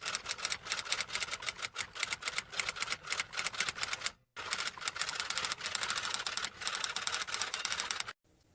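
Rapid keystroke clicks of typing in two long runs, broken by a short pause about four seconds in.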